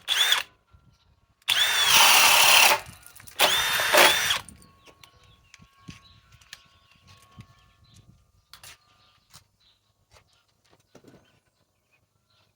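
Harbor Freight Hercules brushless cordless drill driver boring with a 1.5-inch bit: a brief trigger blip, then two loud runs of about a second each, the motor pitch rising and dropping in each, followed by faint clicks.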